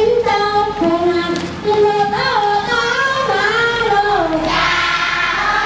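Children and women singing together, a Dong duoye circle-dance song: long held notes that slide from one pitch to the next.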